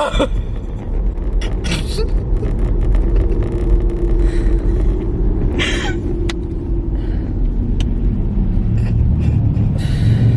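Steady road and engine rumble inside a moving car, with a person making wordless mouth sounds and a long held vocal tone partway through.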